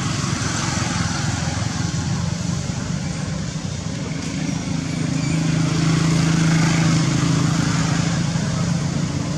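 A motor engine running steadily, its hum swelling a little about halfway through.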